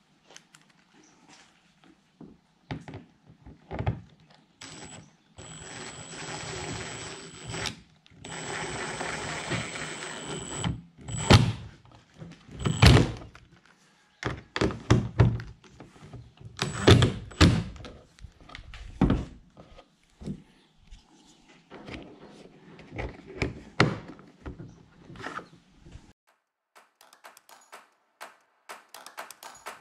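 Thunks, knocks and handling noise on a plastic kayak hull as a carry handle is put back on, with two few-second stretches of steady noise in the first third.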